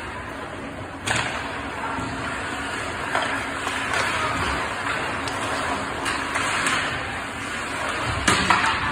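Ice hockey play: skate blades scraping on the ice in a steady hiss, with sharp clacks of sticks, puck and boards, one about a second in and two close together near the end, echoing in the rink.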